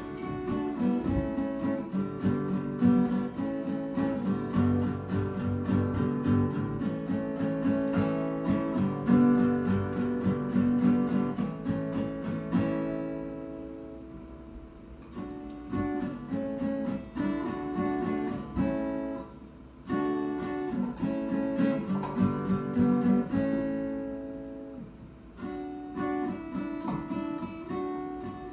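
Acoustic guitar played with steady strummed chords. About halfway through, the strumming thins out and chords are left to ring and fade between phrases.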